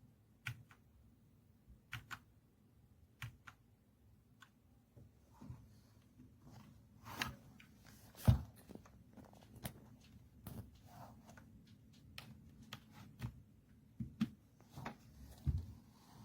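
Irregular clicks and knocks from a Dierya T68SE 60% mechanical keyboard with red switches being handled and pressed, about one or two at a time, with a louder thump about eight seconds in.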